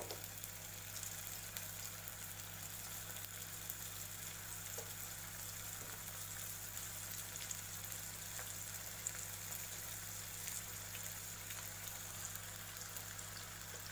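Cabbage manchurian balls deep-frying in hot oil in a kadhai: a steady sizzle with a fine crackle, over a low steady hum.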